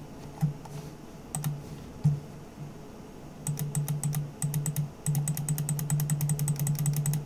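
Clicking of a computer mouse: a few single clicks, then from about three and a half seconds in a fast, even run of clicks, about nine a second, with a short pause midway.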